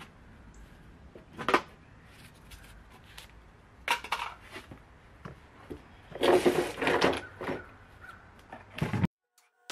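Handling noise from a plastic shop-vac hose and wand being picked up and fitted: scattered knocks and clatter with rustling, a sharp knock about a second and a half in and a longer stretch of clatter and rustling around six to seven seconds. The vacuum motor is not running, and the sound cuts off abruptly near the end.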